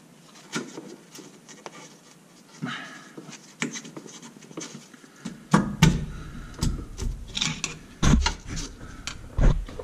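Gloved hands and a screwdriver working a dogbone-mount insert into the rubber of a VW Golf R's dogbone mount: scattered scrapes, rubs and clicks. From about halfway there are heavier knocks and thumps.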